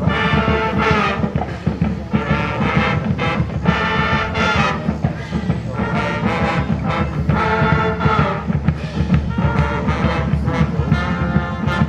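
High school band playing a brass-heavy tune, in short phrases of held notes with brief breaks between them.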